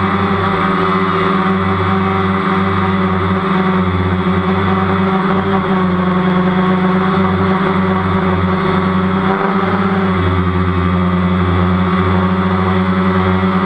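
DJI Phantom quadcopter's electric motors and propellers whining steadily in flight, heard close up from the camera on the drone. The pitch wavers slightly, with a brief change about ten seconds in.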